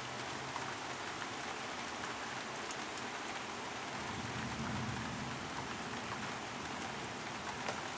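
Steady rain shower falling, an even hiss dotted with faint drop ticks, with a slight low swell about halfway through.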